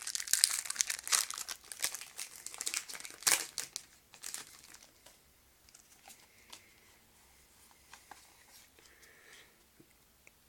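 Foil wrapper of a Pokémon card booster pack crinkling and tearing as it is opened, a dense run of crackles that dies away about four seconds in, leaving only faint scattered clicks and rustles.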